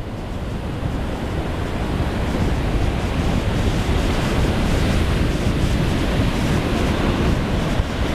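Small, choppy ocean surf breaking steadily on the beach, with an onshore wind buffeting the microphone.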